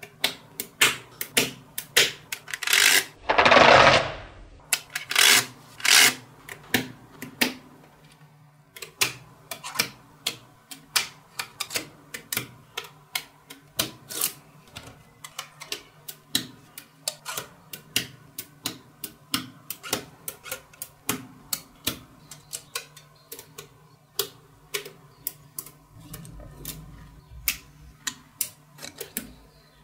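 Small magnetic balls clicking and snapping together as rows and bars of them are pressed onto a structure, in quick, irregular clicks several a second. About three seconds in comes a louder, longer rush of noise lasting about a second.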